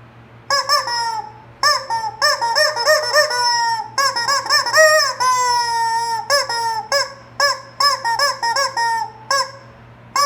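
Rubber squeaky chicken toy being squeezed over and over, giving a run of short, high squawks with one longer, slowly falling squawk about five seconds in.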